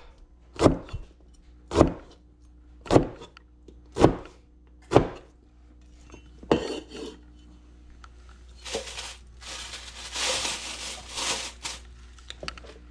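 A cleaver chops down through pineapple rind onto a plastic cutting board: five sharp knocks, about one a second. About halfway through, the chopping stops and a few seconds of rustling and scraping follow as the cut-off peel is gathered up and cleared into the sink.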